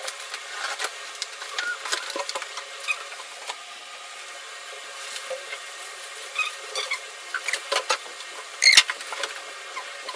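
Cardboard box being unpacked: packing tape cut with scissors, cardboard flaps and plastic-bagged accessories scraping and crinkling in a string of small clicks and rustles, with one louder plastic crinkle near the end.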